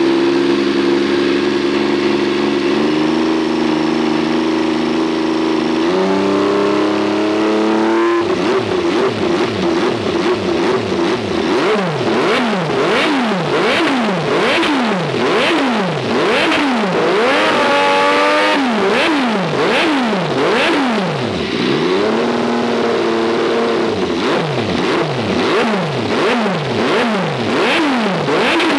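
MV Agusta F3 675's three-cylinder engine through its exhaust: it holds a steady fast idle that steps up in pitch a few times, then is revved in quick throttle blips about once a second, with one longer, higher rev about two-thirds of the way through.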